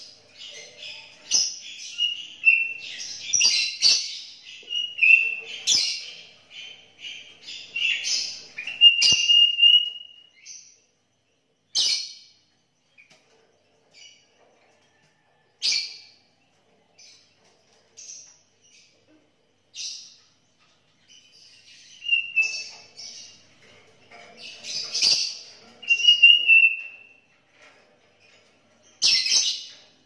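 Sooty-headed bulbul (kutilang) singing in bursts of short chirped and whistled phrases, some with a quick pitch slide. The bursts are dense at first, thin out to scattered single calls through the middle, and pick up again near the end. A few sharp clicks sound among them.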